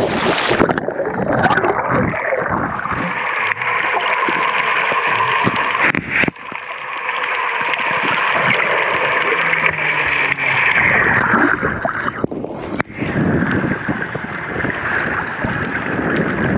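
Seawater sloshing and gurgling around an action camera at the surface and dipped under, sounding muffled while it is underwater, with a few sharp clicks. The sound opens up again near the end as the camera comes back above the water.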